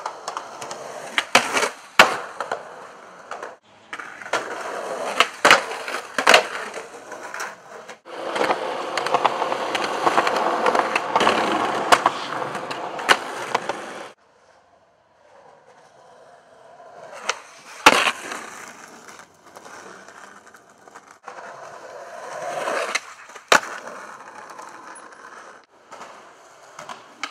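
Skateboard wheels rolling on concrete and asphalt, broken by sharp clacks of tail pops and landings, in several separate takes. The rolling is steadiest and loudest in the middle, then quieter.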